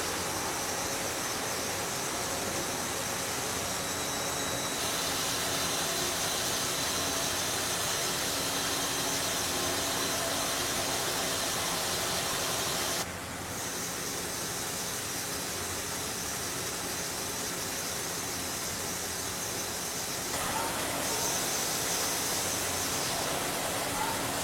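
CNC lathe machining metal: a steady hiss like coolant spray, with a faint high whine from the spindle and cutting tool. The sound drops suddenly about thirteen seconds in and shifts character again near the end.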